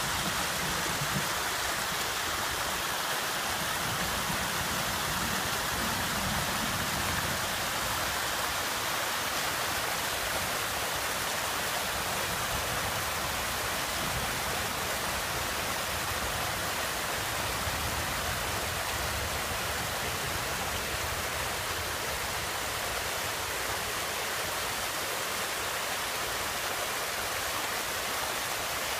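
Steady heavy rain: an even, constant hiss of falling water with no break.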